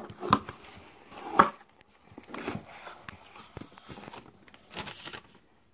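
Cardboard shipping box being opened by hand: cardboard rubbing and scraping as the box is slid and its flaps are pulled open, with four brief, louder scrapes along the way.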